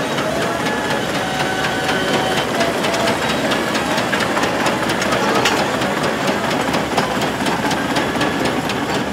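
Miniature steam wagon running past, its steam engine beating rapidly with a steady mechanical clatter.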